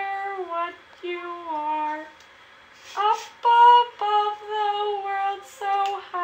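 A girl singing unaccompanied, holding long notes that step downward in pitch, with a short pause about two seconds in.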